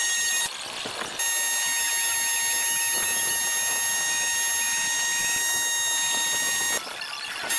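A steady, high-pitched buzzing tone with many overtones, dropping out briefly just after the start and again near the end.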